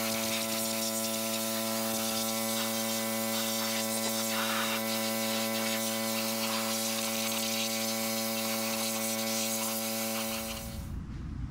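Pressure washer running steadily, a constant motor hum under the hiss of the water jet. It cuts off shortly before the end.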